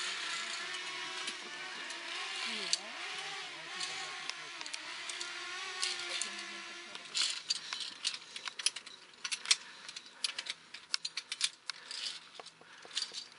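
Via ferrata climbing gear clinking: irregular sharp metallic clicks of carabiners and lanyards against the steel safety cable and rock, thickest in the second half. A steady hiss runs under the first half.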